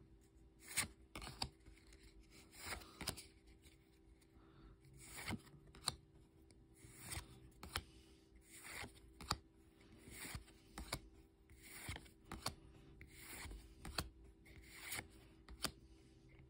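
Pokémon trading cards sliding against one another as a pack is flipped through one card at a time: faint swishes and light clicks every second or so.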